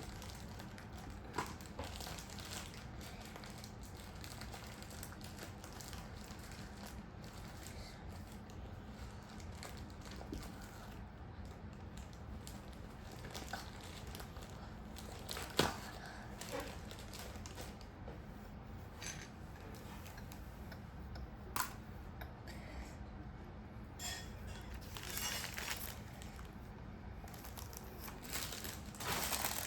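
Quiet handling of small craft materials: faint rustling and crinkling with a few sharp little clicks, over a steady low room hum.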